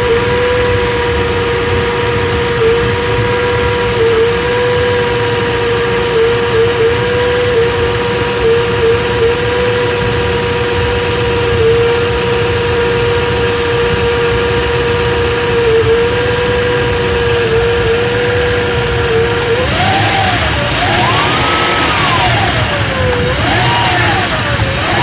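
2000 Toyota Land Cruiser 100 engine idling with a steady high-pitched whine and brief stumbles every few seconds, the hiccups it has when cold. About 20 seconds in it is revved up and down a few times, and the whine rises and falls with engine speed. The owner hopes the whine is not the water pump.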